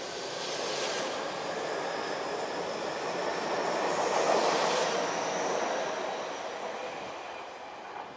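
Tobu 50050-series electric commuter train running past at close range. Its wheels rumble on the rails, the sound swelling to a peak about halfway through and fading as the last car goes by.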